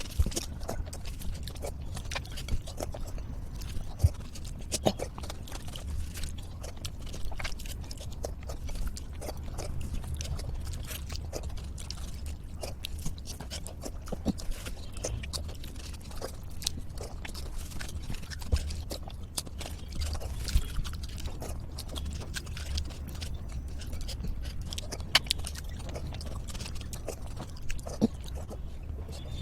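Close-miked eating sounds of someone eating panta bhat, watery soaked rice: chewing, wet lip smacks and mouth clicks coming thick and fast, over a steady low rumble.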